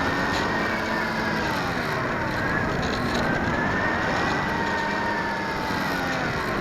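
RC Stratos model airplane's motor and propeller whining in flight, the pitch slowly rising and falling as the throttle changes, over a steady rush of air noise.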